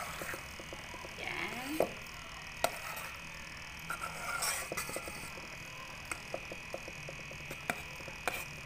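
A metal spoon clinking against the metal inner pot of a rice cooker while canned sardines in tomato sauce are stirred: scattered light clicks, irregularly spaced, over a faint steady hum.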